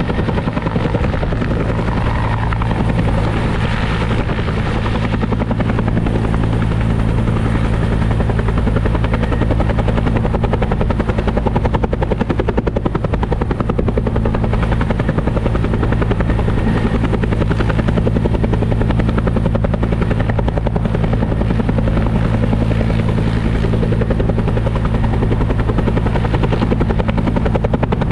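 Helicopter running close by, its rotor beating rapidly and evenly over a low, steady engine drone.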